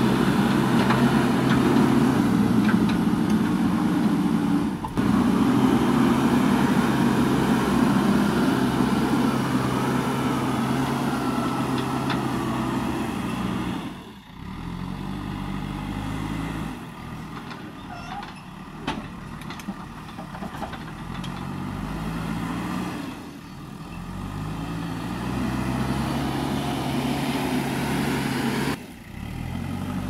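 JCB 3DX backhoe loader's diesel engine working the front loader, running steadily and loud at first, then quieter, with its pitch stepping up and down as it is revved. The sound breaks off abruptly three times where the footage is cut.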